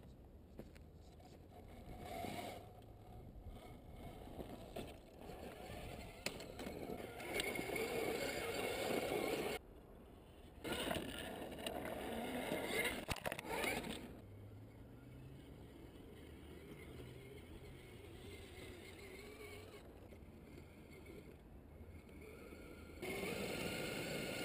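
Tamiya Tundra Highlift RC crawler driving over rough ground: its Tekin 35T brushed electric motor and geared drivetrain whine, rising and falling with the throttle. It is loudest in the middle stretch, drops out abruptly for about a second, and comes back louder near the end.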